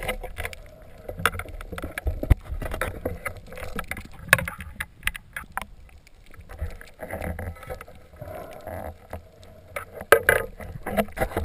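Underwater noise of a speared mullet being handled on a speargun shaft: irregular clicks and knocks over a low watery rumble, louder about ten seconds in.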